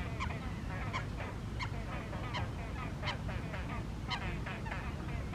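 Great crested grebe giving loud, repeated harsh calls, the strongest about two a second with fainter ones between, over a steady low rumble.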